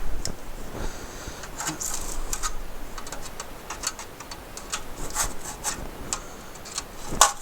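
Irregular clicks, taps and light scraping of hand tools on the metal parts of an Apple II floppy drive as it is taken apart.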